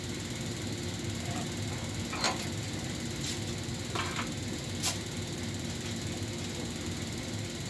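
Steady low machine hum in a workshop, with a few short clicks and rustles of small metal parts and packaging being handled at the bench, about two, three, four and five seconds in.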